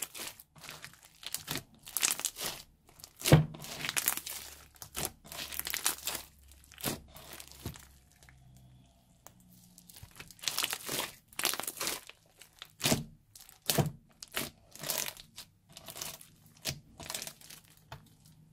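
Thick fluffy slime with foam beads being squeezed, stretched and pulled apart by hand, giving irregular sticky crackling and tearing sounds. The sounds ease off for a couple of seconds about halfway, then pick up again.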